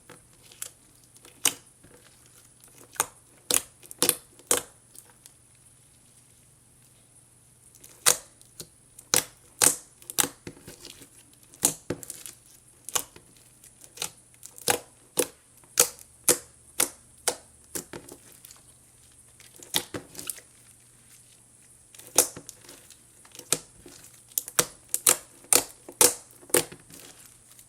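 Clear-glue gummy slime being squeezed and stretched by hand, giving sharp, irregular clicks and pops, often several in quick succession, with short quiet pauses between.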